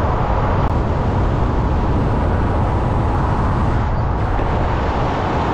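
Steady rush of wind and road noise from a pickup truck driving at highway speed, picked up by a camera on its hood.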